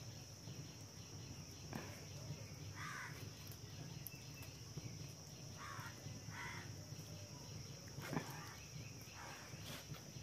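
Faint rural outdoor ambience: a steady high insect chirr, with a few short faint calls and a couple of faint knocks.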